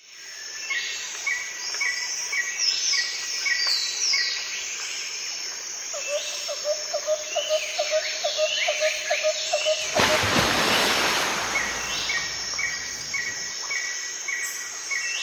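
Several songbirds singing and chirping: a repeated short chirp about three times a second, high sweeping calls, and a fast run of lower notes in the middle. A rush of hiss-like noise covers them for a couple of seconds about two-thirds of the way through.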